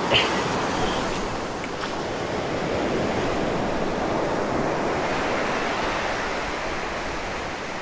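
Ocean surf on the beach: a steady rush of waves breaking and washing in, swelling gently in level.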